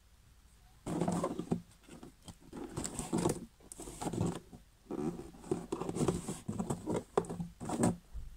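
Game cards and a cardboard card box being handled close to the microphone: irregular rustling, sliding and tapping that starts about a second in and goes on in uneven bursts.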